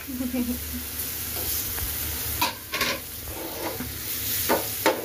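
Jackfruit-seed fritters sizzling steadily in oil in a frying pan, with a few sharp scrapes and knocks of a spatula against the plate and pan about halfway through and again near the end.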